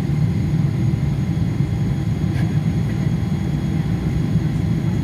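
Steady low rumble of an Emirates airliner's engines and cabin noise heard from inside the cabin, with a few faint, thin, high steady tones above it.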